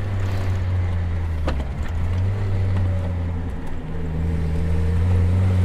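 The 1991 Mazda Miata's 1.6-litre four-cylinder engine pulling steadily while driving. About a second and a half in there is a single click as the engine note dips briefly, then the note settles and climbs a little near the end.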